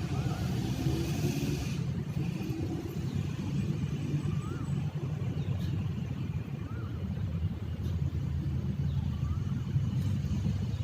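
Steady low rumble of outdoor background noise, with a faint short chirp that rises and falls, repeating every couple of seconds.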